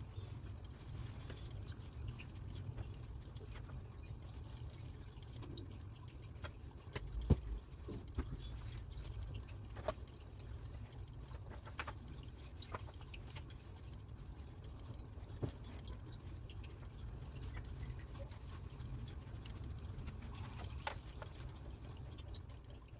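Water ambience: scattered drips over a low steady rumble.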